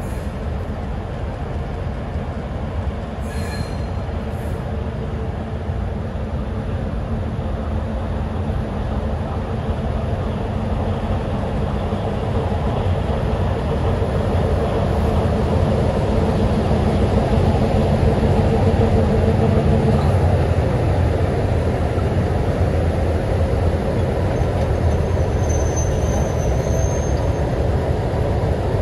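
Heritage diesel locomotives (NSW 47 class and Alco 44 class 4464) running, their engines a steady low drone that grows louder as they come close. A short high wheel squeal sounds near the end.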